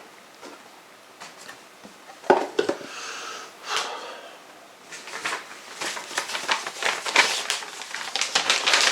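Album sleeves and packaging being handled: a sharp knock about two seconds in, then rustling, crinkling and clicking that grows busier from about halfway through.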